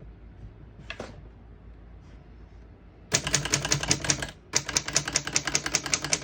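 1929 Corona Four portable typewriter being typed on: a single click about a second in, then from about three seconds a rapid run of keystrokes, around ten strikes a second, with a brief break partway. The keys strike cleanly, none skipping or sticking.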